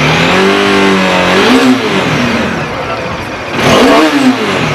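Bajaj Dominar 400's single-cylinder engine revved from idle. The pitch climbs, holds for about a second and falls back, then a second, shorter blip comes near the end.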